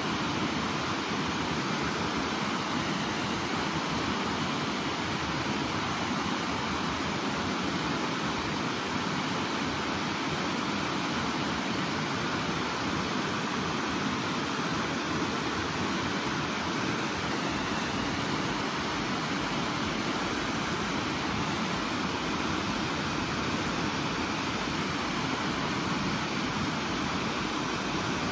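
River water rushing steadily over rocky rapids.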